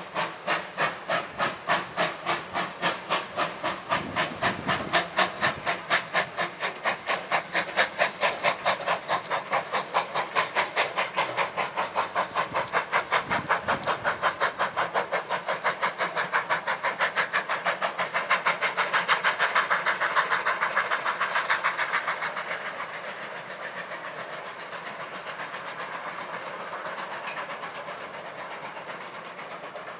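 Steam locomotive working a train, its exhaust chuffs in a regular beat that quickens as it gathers speed, with steam hiss. The sound is loudest about twenty seconds in, then fades as it draws away.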